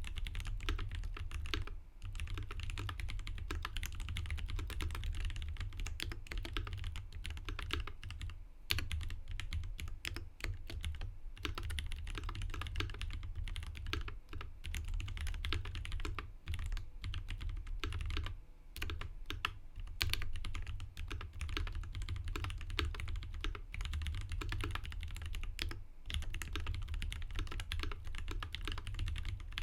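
Continuous fast typing on a tenkeyless mechanical keyboard prototype with Durock T1 tactile switches lubed with Tribosys 3204 and GMK doubleshot ABS keycaps, key after key in quick succession. Brief pauses come about two, nine and nineteen seconds in.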